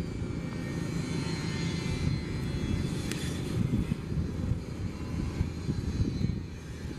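Steady low rumble of outdoor background noise, with faint thin tones higher up.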